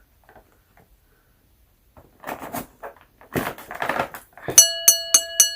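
Toy packaging crinkling and crunching as a doll box is opened. Near the end a steady electronic tone starts, broken by sharp clicks about five times a second.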